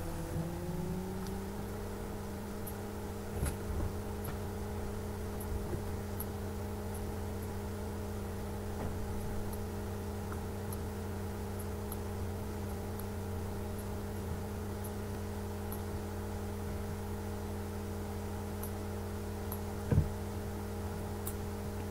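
Steady low electrical hum and hiss, with a few of its tones gliding up slightly just after the start. A few faint clicks and a short thump near the end.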